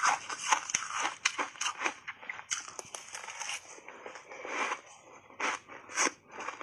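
Crunching and biting into refrozen shaved ice coated in matcha powder: an irregular run of short, crisp crunches, thick at first and then fewer and further apart, with a few louder bites near the end.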